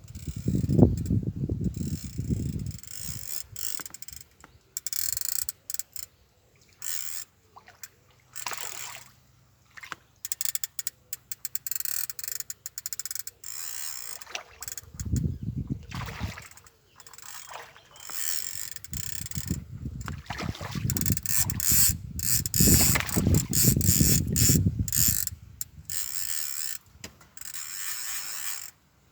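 Centrepin fishing reel's ratchet clicking in fast, uneven bursts, a racket, with short pauses between runs. Low rumbling noises come and go, loudest near the start and for several seconds past the middle.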